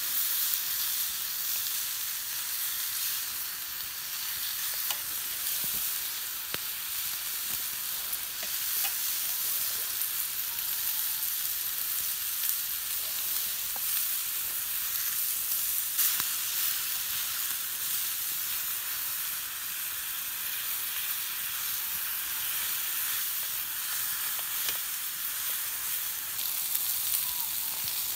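Food frying in a pan over a campfire: a steady sizzling hiss with occasional faint small pops.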